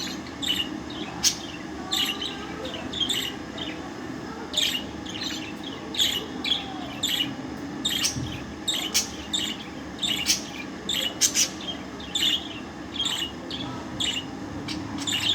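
Female budgerigar chirping: short, sharp chirps and clicks repeated irregularly, about one or two a second, over a steady low hum.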